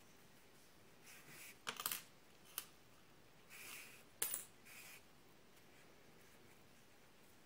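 Faint handling noise from hand-sewing a stuffed crocheted toy: soft rustles of yarn being drawn through, with a few sharp little clicks, the loudest about two seconds in and again about four seconds in.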